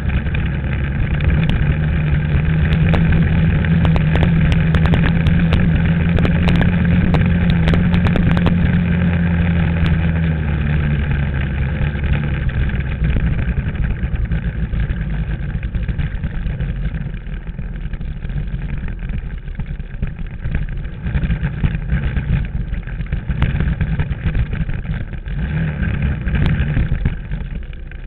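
Dirt bike engine running at steady revs under throttle for about ten seconds, then eased off and running quieter and less evenly.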